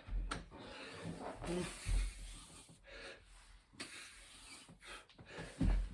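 Dull thumps of a person doing burpees, hands and feet landing on the floor three times, with hard breathing and rustling between.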